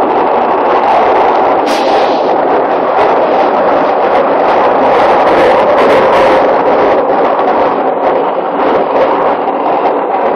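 London Underground 2009 Stock train running at speed through a deep tube tunnel, heard from inside the carriage: a loud, steady rumble of wheels on rail and tunnel noise, with one sharp click about two seconds in.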